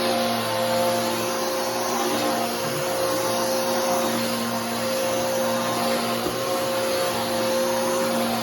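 Bissell Powerforce Helix 3313 upright vacuum cleaner running steadily: an even motor hum and airflow rush with a constant pitch.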